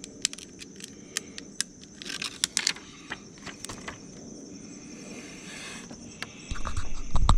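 Scattered small clicks and rustles of hands handling small parts, over a steady high insect trill. Near the end comes a low rumble that ends in one sharp click, like the microphone being handled.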